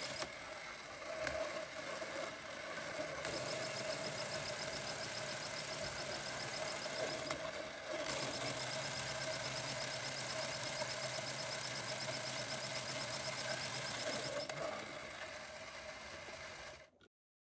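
Motorised LEGO Technic V8 engine model and 5+R gearbox running: a steady whir with fast plastic clatter from the gears and pistons. Clicks come as the gear lever is shifted by hand, and the running sound changes in level and note at each shift, a few times. It cuts off abruptly shortly before the end.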